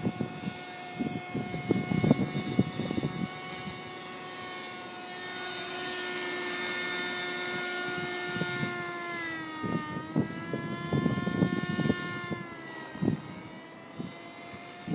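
Small radio-controlled model helicopter flying overhead, a steady high whine with several tones that swells as it passes closer, dips in pitch a little before 10 seconds in and climbs back. Irregular low rustling thumps, like wind or handling on the microphone, come early and again in the second half.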